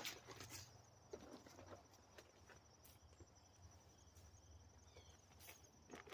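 Near silence: a faint insect trilling steadily at a high, even pulse, with scattered soft ticks and rustles.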